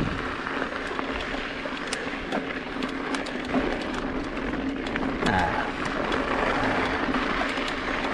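Mountain bike rolling slowly along a rocky dirt trail: a steady rush of knobby tyres on gravel with many sharp ticks and rattles from the bike.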